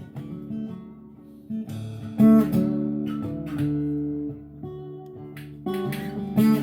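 Guitar music: quiet picked notes, then strummed chords ring out loudly from about two seconds in, with more strums near the end.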